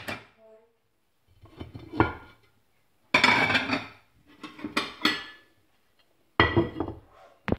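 Crockery and cutlery clattering and clinking as dishes are handled and set down, in several short bursts with sharp clinks.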